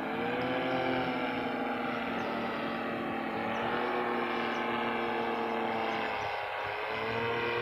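A steady droning hum whose pitch slowly wavers, dropping out briefly about six seconds in and coming back with a rise in pitch.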